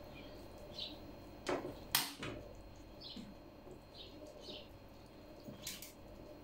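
Metal spoons clinking and scraping against a pot of rice filling and a metal tray while cabbage leaves are filled and rolled, with the loudest clink about two seconds in. Short high bird chirps sound every second or so.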